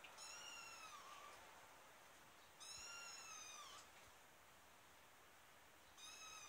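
A kitten mewing in high, thin calls while carried in its mother cat's mouth: two calls about a second long, each dipping slightly at the end, and a third starting near the end.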